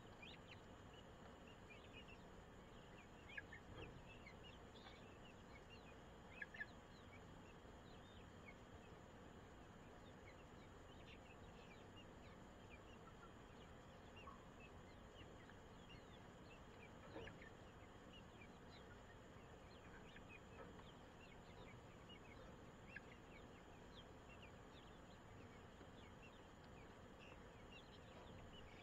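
Near silence: faint, scattered short peeps from chicks over a steady hiss, with a few soft clicks.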